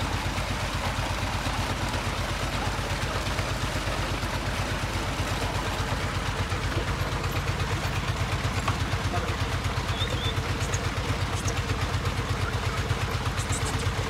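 Tube well's pump engine running steadily with a rapid, even low thudding beat, over water gushing from the outlet pipe into a brick tank.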